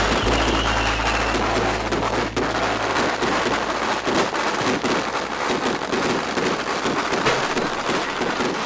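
A long string of Chinese firecrackers going off in a rapid, continuous crackle.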